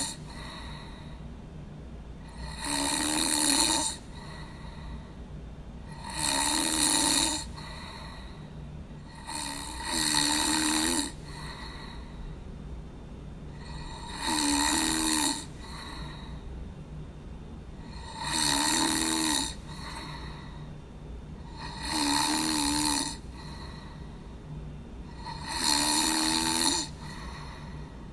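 A person snoring: seven loud snores, each about a second long and coming about every four seconds, over a faint steady low hum.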